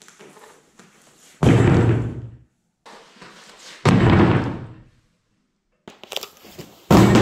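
Three heavy thumps about two and a half seconds apart, each dying away over about a second, with faint rustling between them.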